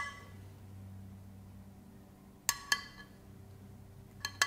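Metal spoon clinking against a glass dish while spooning egg mixture over soaking bread: one clink at the start, two quick clinks about two and a half seconds in and two more near the end, each ringing briefly.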